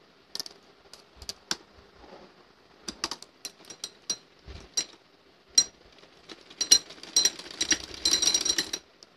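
Domestic sewing machine stitching. It starts with scattered separate clicks and short runs, then gives about two seconds of fast, continuous clatter from the needle mechanism, which stops shortly before the end.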